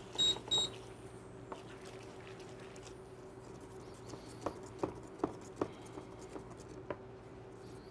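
Two short beeps from an induction cooktop's touch controls as the heat setting is changed, then about five light taps of a wooden spoon against a stainless steel skillet as butter is stirred into a pan sauce, over a steady faint hum.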